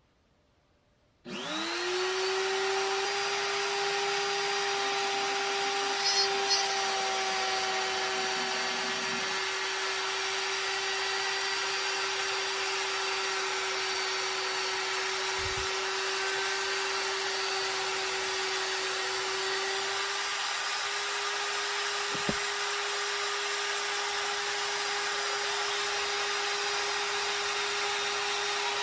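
Die grinder starting about a second in, its pitch rising quickly as it spins up, then running steadily at high speed with a strong hiss while it cuts the flank of a 3D-printed plastic worm on the lathe.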